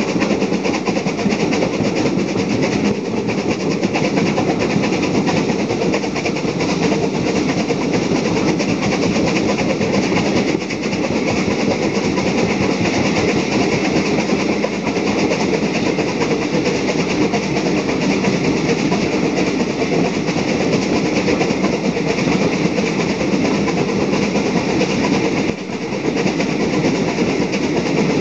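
Steam train climbing a bank, heard from an open carriage window: rebuilt Bulleid West Country class Pacific 34046 "Braunton" working up the gradient, with the coaches' wheels running over the rails.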